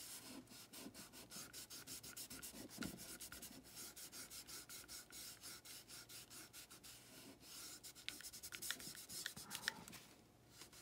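Paper towel rubbing wet raw umber oil paint off an oil-primed masonite panel: faint, rapid back-and-forth wiping strokes, a little louder near the end, then a brief pause.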